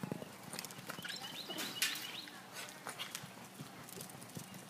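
A horse galloping on a dirt arena: irregular hoofbeats, with a sharper knock a little under two seconds in and a few short high chirps before it.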